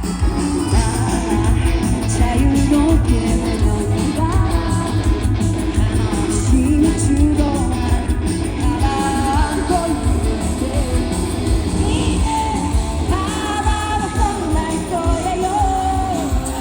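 Live rock band playing at full volume, with drums, bass and guitars under a sung melody.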